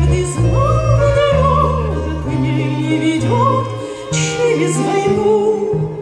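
A woman's voice singing a slow waltz-time song into a microphone, with a wavering vibrato on held notes, over a backing accompaniment whose low bass notes change about once a second.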